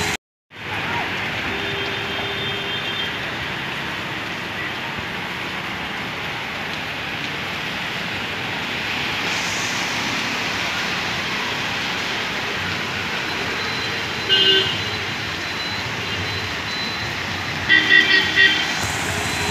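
Steady rain and traffic noise on a wet city road, with vehicle horns: a toot about two seconds in, another around fourteen seconds in, and a run of short quick toots near the end. The sound cuts out for about half a second at the very start.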